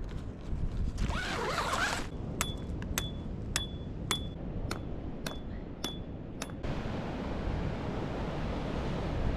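Strong wind rumbling on the microphone. About two seconds in comes a run of eight sharp clicks, about two a second, each with a short ringing tone; they stop suddenly and a steadier rushing noise of wind and surf takes over.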